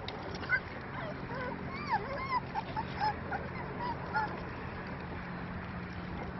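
A litter of puppies whimpering and squeaking in short, scattered high calls while they jostle around a food dish, over a steady low hum.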